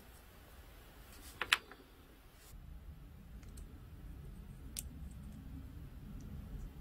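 Small plastic scale-model engine parts clicking against each other as they are handled and fitted together: a sharp double click about one and a half seconds in, another click a little before five seconds, and a few faint ticks in between.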